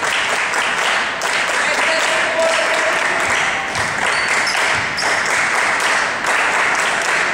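Crowd and players cheering and chattering in a gymnasium, with scattered claps; a steady din of many voices with no clear words.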